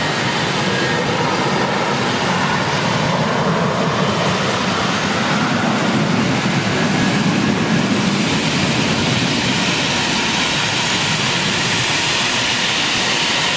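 Jet engines of taxiing airliners running at taxi power, a steady loud rush of jet noise. It swells a little about halfway through as a Delta twin-engine jetliner rolls close past.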